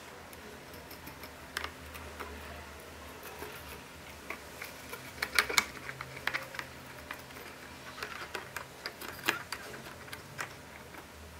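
Small clicks and rubbing from hands working a screw and washer through a balloon membrane stretched over a small tin can and handling the can. The clicks come irregularly, the sharpest in a cluster about five and a half seconds in and again about nine seconds in.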